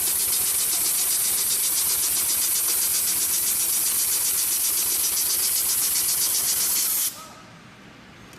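Triple feed sewing machine running at speed, a steady fast rhythmic whirring with a hissy edge, stopping suddenly about seven seconds in.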